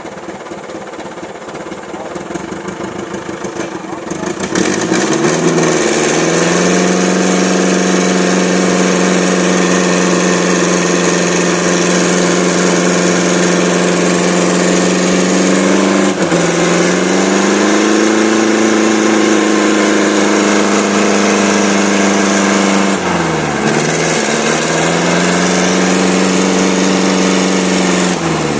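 Old truck engine revved hard and held at high revs while the truck labours through deep mud. The revs climb sharply about four seconds in, then stay high with two brief dips, about halfway through and again near the end.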